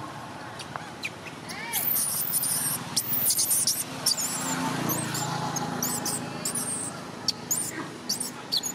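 Baby macaque screaming in repeated short, very high-pitched squeals, some rising and falling in pitch, in distress while being comforted. A low rumble swells under the squeals around the middle.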